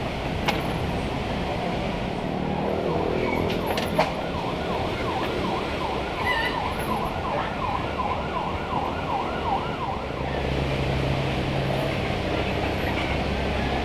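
Traffic noise with a siren-like warbling tone that dips and rises about three times a second for a few seconds through the middle. A steady low engine hum sets in near the end.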